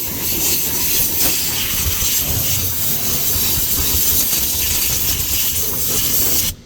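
Compressed-air blowgun blowing dirt out around the fuel pump access: a loud, steady rush of air that cuts off suddenly near the end.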